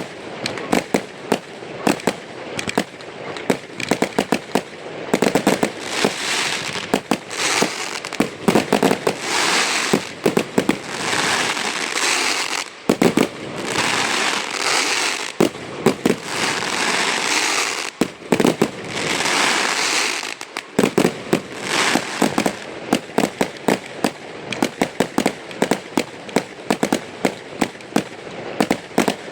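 Fireworks display: a rapid stream of sharp bangs throughout, with long stretches of dense crackling through the middle.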